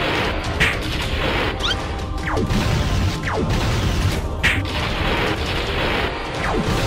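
Cartoon sound effects over background music: a steady mechanical rumble with several sharp thuds, and two falling glides about two and three seconds in.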